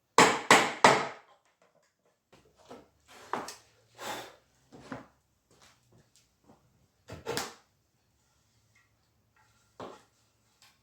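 Wooden knocks from chair parts being worked apart: three sharp knocks in quick succession at the start, then a run of softer knocks and clatter, a double knock past the middle and one more knock near the end.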